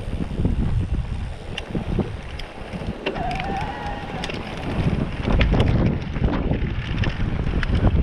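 Mountain bike rolling fast over a rough dirt trail: wind buffeting the camera microphone over the rumble and rattle of tyres and frame on the ground, louder from about five seconds in, with a brief squeal about three seconds in.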